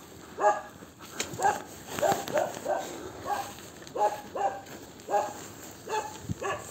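Large dogs barking repeatedly at a person on foot with a bicycle, short sharp barks about every half second to a second.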